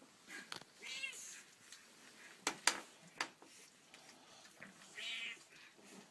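Colourpoint (Siamese-type) cat meowing, two short high calls about a second in and again near five seconds, with a few sharp clicks in between.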